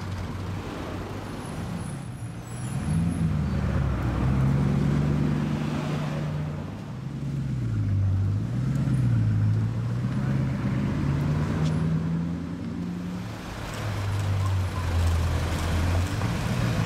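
Bugatti Chiron's quad-turbo W16 engine running at low road speed, its note rising and falling several times as the car accelerates and eases off.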